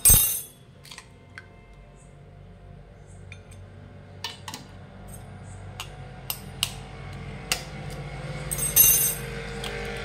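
Eggs being cracked over a ceramic bowl by tapping them with a steel fork: scattered sharp clicks and taps, with louder cracking noises at the very start and again about nine seconds in.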